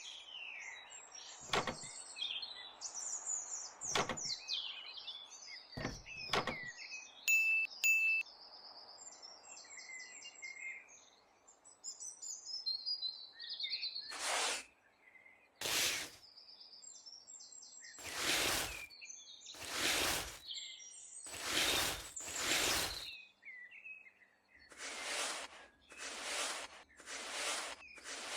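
Birds chirping, with three sharp knocks in the first few seconds. From about halfway there is a run of short swishing strokes, about one every second or two.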